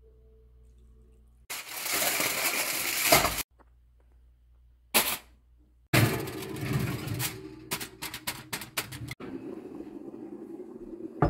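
A string of short kitchen-handling sounds: a loud rush of noise for about two seconds, a brief burst, then aluminium foil crinkling over a glass roasting dish with a quick run of sharp clicks. The sound changes character at each cut.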